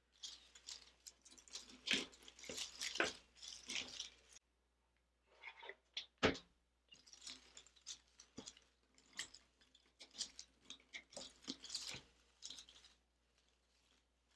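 Faux greenery stems and their plastic leaves rustling and crackling against a grapevine wreath as they are tucked into it, in irregular bursts with a brief pause a little over four seconds in and a sharp click about six seconds in.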